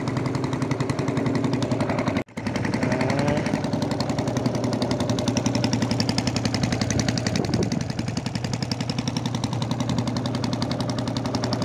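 Small single-cylinder boat engine running steadily under way, its rapid, even firing pulses chugging throughout, with a brief gap about two seconds in.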